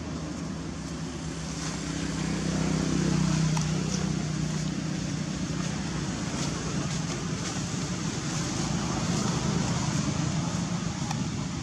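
Steady low engine hum from nearby motor traffic, swelling about three seconds in, over a faint high hiss.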